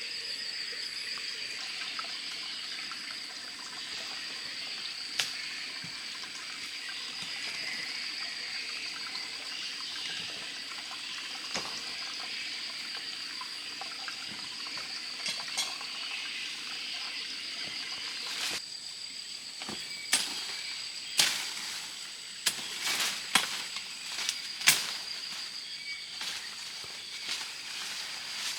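Forest ambience: insects trill steadily and high-pitched over an even hiss. From about two-thirds of the way in comes a run of sharp knocks or snaps, louder than the background.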